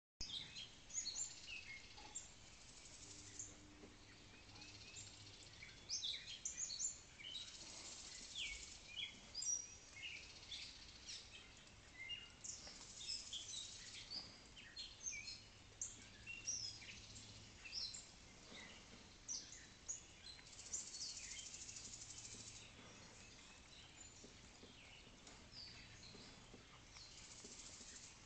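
Faint outdoor chorus of songbirds giving many short chirps and calls, with a high insect buzz that comes and goes in spells of a second or two, over a faint low hum.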